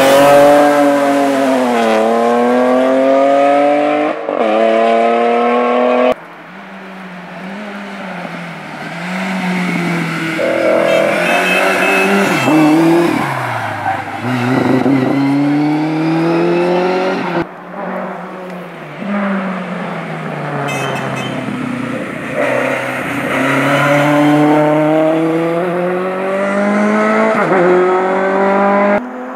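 Rally cars at full throttle passing one after another, engines revving up and falling back again and again through gear changes and lifts for the bends. The sound breaks off abruptly twice where one car gives way to the next.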